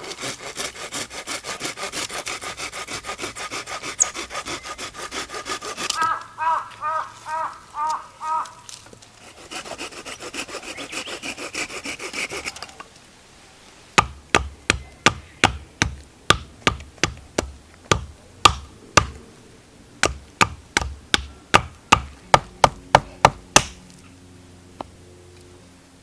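A hand saw cutting wood in fast back-and-forth strokes, which slow to separate ringing strokes about six seconds in and then go on for a few seconds more. About halfway through there is a steady run of sharp knocks, roughly two a second, that stops a couple of seconds before the end.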